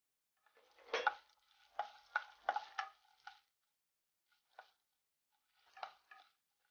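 Wooden spatula stirring cashews, mustard seeds and urad dal frying in ghee in a nonstick pan: a series of short scraping strokes with light sizzling, the loudest about a second in and a few fainter ones near the end.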